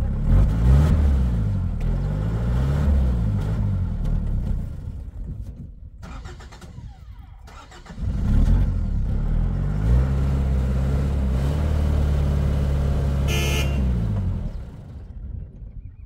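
A loaded pickup truck's engine revving hard as the driver tries to drive it out of soft dirt where it is stuck, its rear wheels sunk in. The revs rise and fall several times, ease off for a few seconds, then are held high for about six seconds before dropping away near the end.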